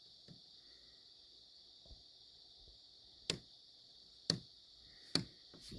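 Three sharp clicks, a little under a second apart, starting a little over three seconds in: the kayak's lighting toggle switches being flipped on one after another.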